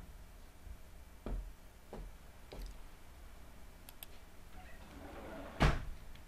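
A few soft knocks and clicks, about three in the first few seconds, then a single louder knock about five and a half seconds in.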